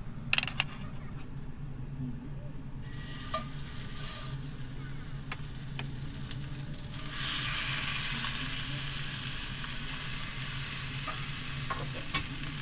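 Ribeye cap sizzling in smoking-hot beef tallow in a cast-iron pan. The sizzle starts about three seconds in and grows louder about seven seconds in, over the steady hum of a vent fan running on full.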